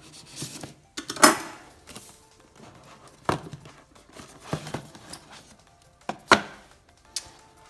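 Cardboard product box being opened and handled: scraping and rustling of the packaging, broken by several sharp taps and knocks, the loudest about a second in and again about six seconds in.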